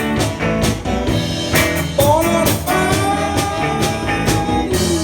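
Live amplified rock band playing a blues-rock number: electric guitar with bending notes over bass and a steady drum beat.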